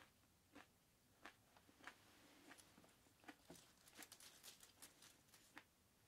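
Faint, dry crackling and clicking as a setsubun charm of dried holly sprigs and dried sardines is handled. A few separate clicks come first, then a dense run of crisp crackles near the middle.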